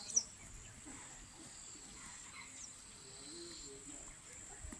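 Steady high-pitched insect chirring, with one short, sharp bird chirp just after the start and a few faint bird calls.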